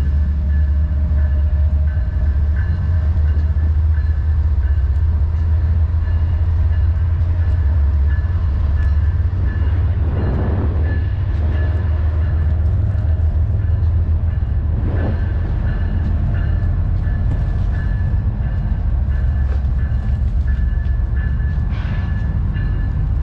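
Lime electric scooter riding along: a steady low rumble of wind on the microphone, with a constant high whine from the scooter's motor and light rattling over the rough pavement.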